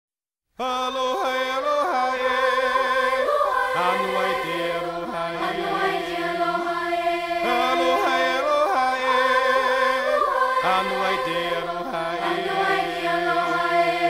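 Background music of voices singing held, chant-like chords, starting about half a second in.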